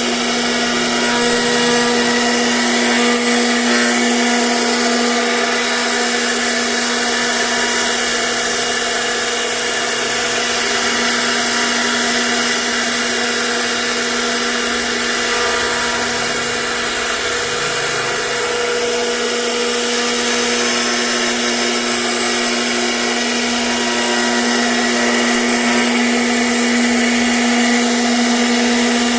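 CNC router spindle running steadily as it carves wood, a constant machine whine with cutting noise over it.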